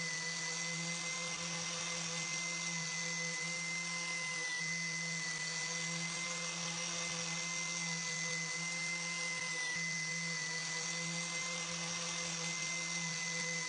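A small electric motor, such as a power tool, running steadily at constant speed with a high whine. The whine dips briefly twice, about a third and two thirds of the way through.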